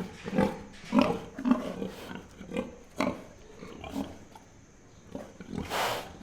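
Pigs grunting in short separate grunts, with a quieter gap and then one longer, noisier blast near the end.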